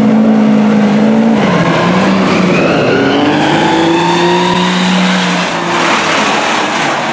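Lifted mud truck's engine at full race: held at steady revs at first, a brief dip about a second and a half in, then climbing steadily in pitch as it accelerates down the dirt drag strip. A broad rush of engine and tyre noise follows as it passes close, about six seconds in.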